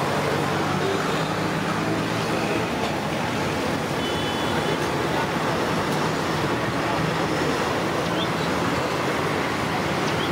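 Steady sizzle of Mysore bondas deep-frying in hot oil in a large iron kadai, mixed with the even rush of street traffic.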